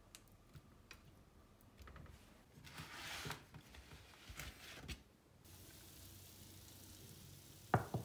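Quiet kitchen handling sounds: faint clicks and soft squishing from hands on yogurt-marinated chicken and potatoes in a metal baking tray, a short scrape about three seconds in as the tray is moved, then a sharp knock near the end.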